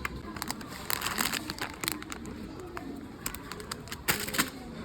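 Crinkling and clicking handling noises, a run of short crackles and taps, with faint voices murmuring underneath.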